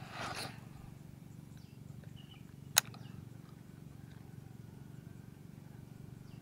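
Swish of a baitcasting rod being cast in the first half-second, then a single sharp click about three seconds in, the loudest sound.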